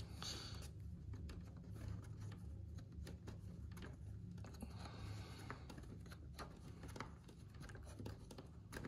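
Faint small clicks and scraping of a hex driver turning a tight screw through a foam model-jet wing into a plastic block, with a couple of brief scratchy rubs.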